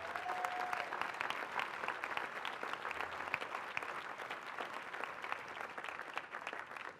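Large crowd applauding, dense clapping that slowly fades toward the end.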